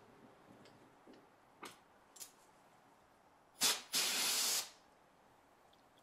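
A pressurised spray hisses for about a second, just after a short first puff, about three and a half seconds in. A few faint clicks come before it.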